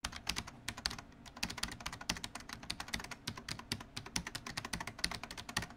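Rapid, uneven clicking of keyboard typing, starting and stopping abruptly.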